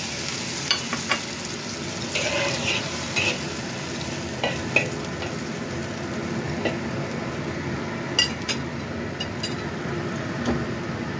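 Metal spatula scraping and clinking against a black wok as carrot sticks and fish balls are stir-fried, over a steady sizzle from the hot pan and the little water just added to it. Sharp clinks come scattered through, a pair of them about eight seconds in.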